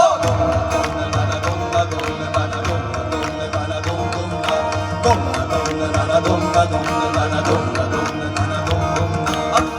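Live band playing an instrumental interlude of an Indian folk song: quick, steady hand-drum strokes over a sustained low drone and held melodic tones.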